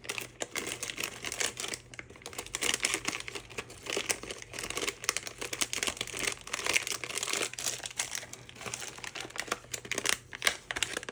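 Packaging being handled and unwrapped, crinkling and rustling in quick irregular crackles throughout.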